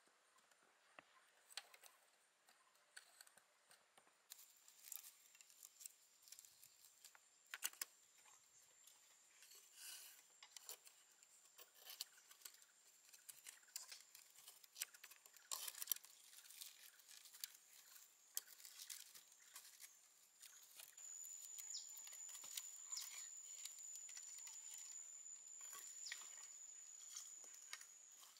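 Near silence with faint, scattered light clicks and rustles. A steady high-pitched insect drone comes in clearly about three-quarters of the way in.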